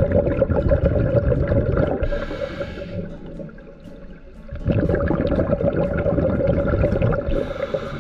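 Scuba diver breathing through a regulator underwater: two long bubbling exhales, each followed by a short hiss of inhaled air.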